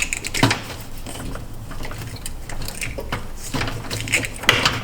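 Scattered light clicks and knocks with some rustling, coming quicker near the end: handling noise.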